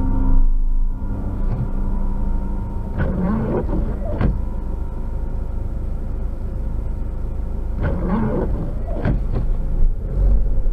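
Steady low rumble of a car heard from inside its cabin, with a few brief swells.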